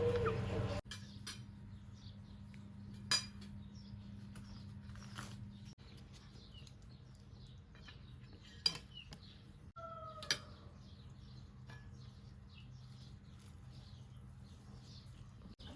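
Quiet outdoor farm sound with faint birdsong and a few sharp clinks, like utensils or dishes being handled.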